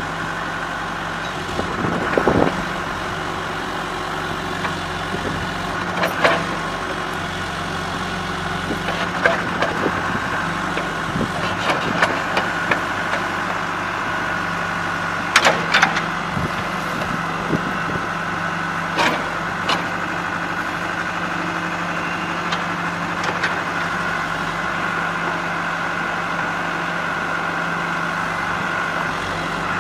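John Deere 310 backhoe loader's diesel engine running steadily at idle, with occasional short sharp knocks at irregular intervals.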